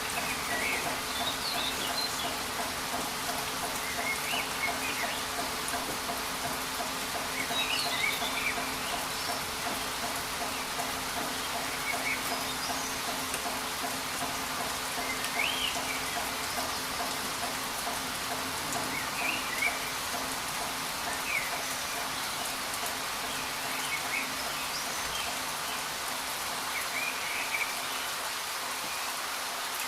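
Steady rain falling, with short bird chirps every few seconds.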